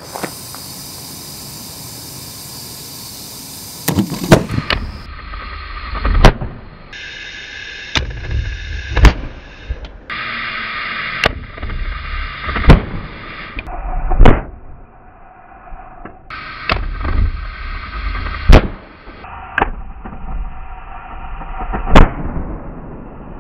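Homemade MAPP-gas propane gun ('plasma rifle') firing over and over: about a dozen sharp, loud booms, one every second or two, as gas built up in the tubing and bottle ignites and blows out the end. A steady hiss of torch gas fills the gaps between the booms.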